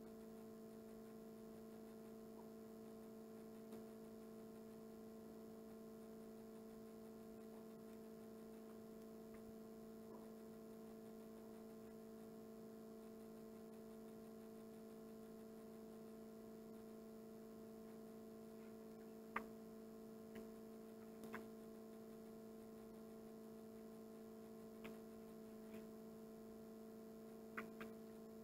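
Near silence: a steady electrical hum, with a few faint clicks in the second half.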